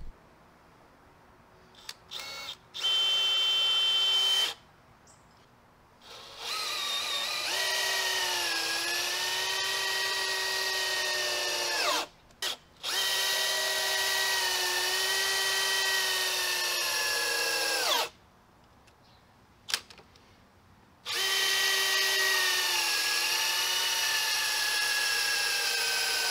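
Cordless drill driving screws into the wooden frame of a stand. After two short trigger blips there are four long runs of steady motor whine, each a few seconds long. The pitch sags as the motor takes load and falls away as each run ends.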